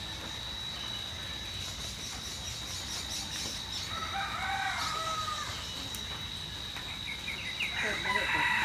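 A rooster crowing, once about four seconds in and again near the end, over a steady high-pitched insect drone.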